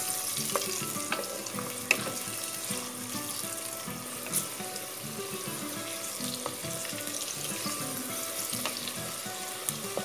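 Sliced onions sizzling steadily as they fry in hot oil in a pressure cooker, being browned to a light brown. A spatula stirs them, with a few sharp scrapes or taps against the pot.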